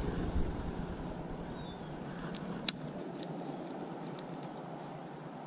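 Wind rumbling on a GoPro camera's microphone, steady and fairly quiet, with one sharp click about two and a half seconds in and a few faint ticks after it.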